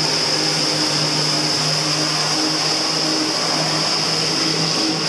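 Jet-Lev water jetpack in flight: the engine of its hose-tethered pump unit drones steadily under a constant rush of high-pressure water jets spraying from the pack.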